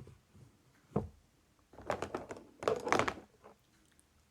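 A small plastic fidget toy being handled: a sharp click at the start and another about a second in, then two quick runs of clicking and popping around two and three seconds in.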